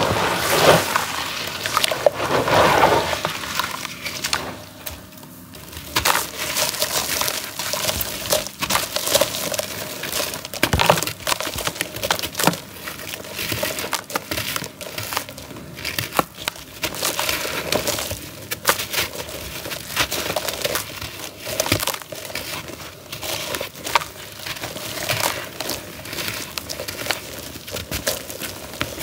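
Grainy charcoal cakes crumbled by hand over a tub of water: a continuous gritty crunching and crackling made of many small sharp cracks. A louder watery swishing fills the first few seconds.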